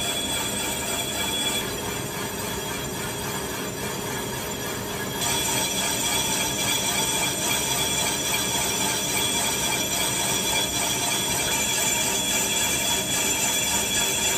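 Lathe turning a cast phosphor bronze bushing dry, no coolant, with a carbide insert: a steady high whine and hiss from the cut over the machine's running hum. It gets louder and brighter about five seconds in.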